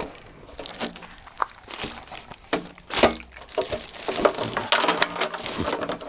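Black plastic bag rustling and crinkling, with irregular light knocks and clicks as a plastic fuel tank and small fittings are handled and pulled from the packing.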